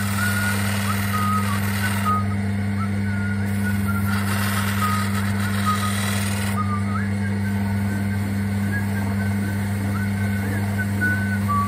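Shoe finishing machine running with a steady motor hum while the edge of a boot's Vibram rubber sole is held against its spinning wheel. A rasping scuff comes and goes as the sole touches the wheel, strongest in the first two seconds and again from about three and a half to six and a half seconds.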